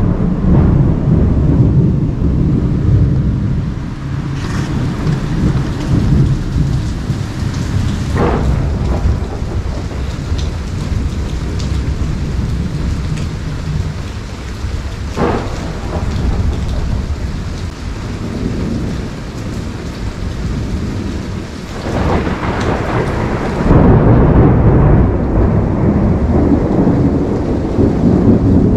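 Tropical thunderstorm: steady rain under rolling thunder. The rumble is heaviest at the start, eases off, then builds again to its loudest over the last several seconds.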